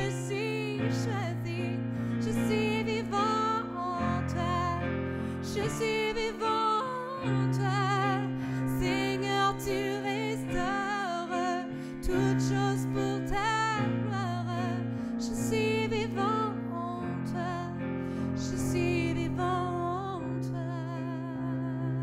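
A woman singing a worship song with vibrato, accompanying herself on a Yamaha digital piano with held chords that change every few seconds.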